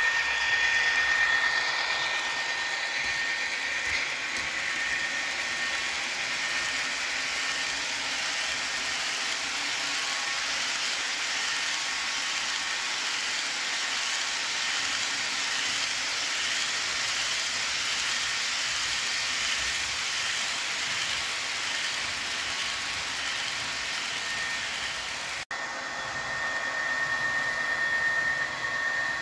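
HO-scale model freight train running past: the locomotives' steady whine near the start, then the covered hopper cars rolling by on the track with a steady rushing noise. The sound breaks off sharply about 25 s in, and the locomotives' whine returns near the end.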